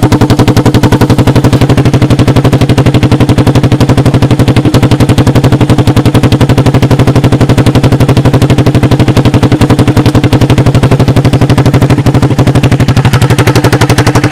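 1986 Honda TRX200SX single-cylinder four-stroke engine running at a steady idle close by, a rapid even popping from the exhaust, with a slight dip in pitch near the end.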